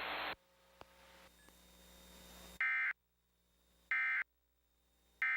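Emergency Alert System digital data tones: three identical short warbling bursts about a second apart, the end-of-message code that closes the warning broadcast. A hiss cuts off just after the start.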